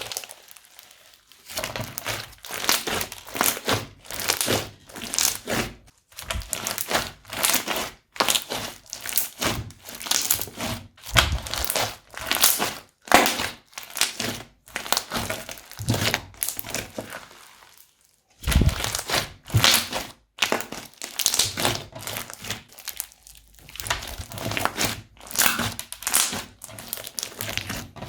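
Crunchy slime squeezed and pressed by hand, giving dense crackling and popping in repeated bursts about a second long, with one short pause a little past halfway.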